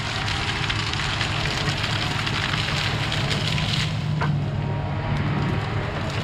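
Caterpillar 973C track loader's diesel engine running steadily under load as it pushes brush, with a dense crackling of small burnt branches snapping and breaking.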